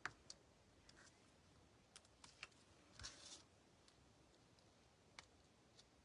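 Near silence with faint scattered clicks and a brief rustle of paper about three seconds in: hands handling cardstock while sticking adhesive-backed sequins onto a card.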